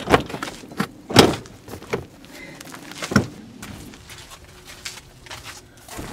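Irregular knocks and clatters, about half a dozen, the loudest about a second in and fainter ones towards the end.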